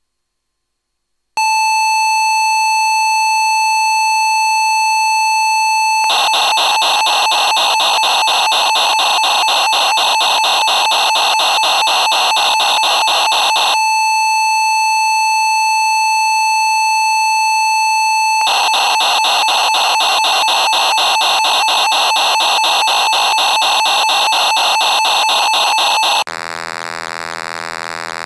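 Roland JX-3P tape-memory data signal played back: the user-sound backup encoded as tones, modem-like. A steady high beep starts about a second and a half in and gives way to a fast warbling data stream. The steady beep comes back, then a second data stream, and near the end a lower, quieter buzzing tone.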